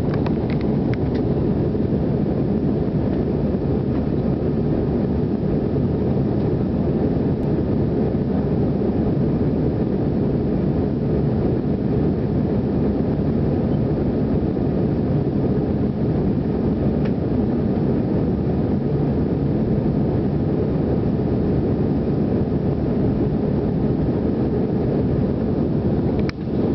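Jet airliner cabin noise in flight, heard inside the cabin: a steady low rush of engines and airflow, with a brief dip near the end.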